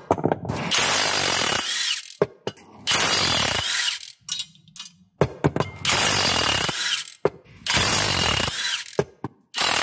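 Milwaukee cordless impact wrench hammering in bursts of about a second each, four times with a fifth starting at the end, as it undoes the flex plate bolts. Small clicks fall between the bursts.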